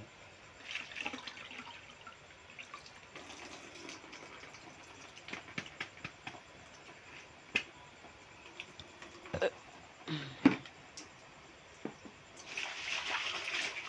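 Rice being rinsed by hand in plastic basins: water drips and trickles from a bowl of wet rice, with scattered splashes and a few sharp knocks of the basins, the sharpest about ten seconds in. Near the end the milky rinse water is poured out in a steady splash.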